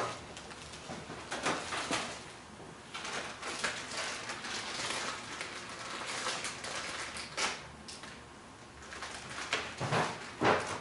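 Kitchen handling noises: a plastic zip-top bag rustling and crinkling, with scattered clicks and knocks of utensils and cookware, a sharp click a little past halfway and a short low sound near the end.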